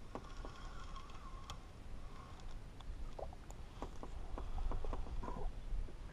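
Spinning reel being cranked to reel in a small fish, with a faint whir at first and then scattered light clicks and taps.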